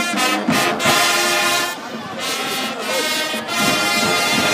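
High school marching band's brass section playing loud held chords, broken by a few short breaks.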